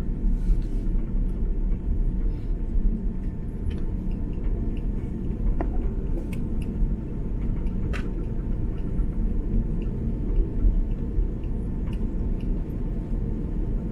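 Cabin noise inside an Airbus A330-300 on the ground after landing: a steady low rumble of the idling engines, airflow and rolling gear, with a couple of faint clicks around six and eight seconds in.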